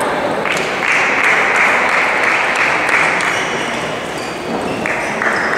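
Table tennis balls clicking off bats and tables at several tables around a sports hall, over a loud, steady rushing noise that switches on about half a second in and drops back near the end.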